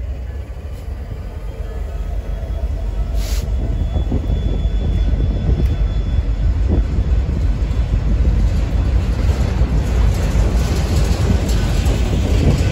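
Freight train of covered hopper cars rolling past close by: a steady low rumble of steel wheels on rail that grows louder over the first few seconds, then holds.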